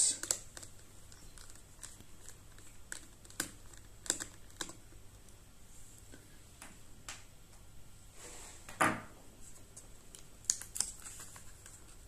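Light, scattered clicks and taps of a small Phillips screwdriver and fingers working on the battery screws and parts of an opened laptop, with one louder knock about nine seconds in.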